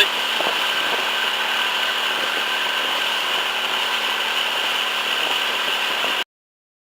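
A boat's engine running steadily while underway. It cuts off abruptly about six seconds in.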